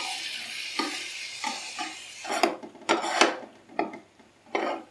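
Onion-tomato masala with freshly added yogurt sizzling in a thin karahi while being stirred, the utensil scraping the pan in repeated strokes. The sizzling stops about halfway through, leaving a few separate scraping strokes.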